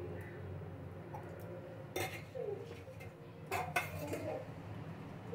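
A steel ladle scraping and knocking against an aluminium cooking pot as raw rice is stirred into fried vegetables. There are three sharp knocks, one about two seconds in and two close together about three and a half seconds in.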